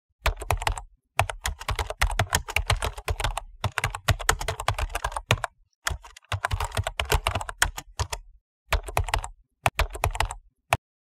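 Typing on a computer keyboard: quick runs of key clicks in several bursts with short pauses between them, ending with a single keystroke.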